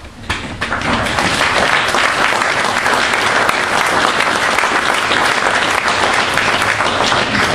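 Large audience applauding, building up quickly within the first second and then holding steady.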